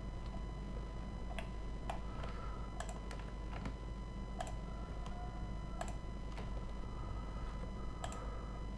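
Computer mouse clicks and keyboard key presses, a dozen or so separate clicks at an irregular pace, over a steady electrical hum.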